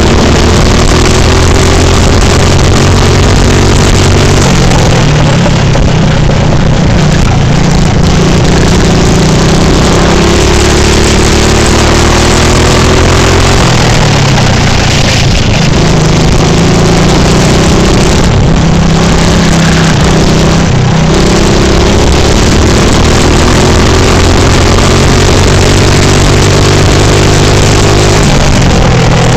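Go-kart engine heard on board at full throttle, loud. Its pitch climbs slowly along the straights and falls away several times as the kart slows for corners. A steady rushing hiss runs over it.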